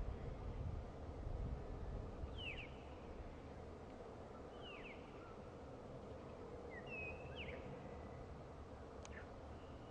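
Small bird calling: short, sharply falling chirps about every two seconds, over a steady low outdoor rumble that is a little louder in the first second or so.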